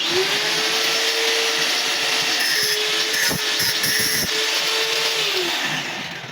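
Electric power tool running at a steady speed with a loud hiss, its motor whine dropping away about five and a half seconds in as it is switched off and winds down.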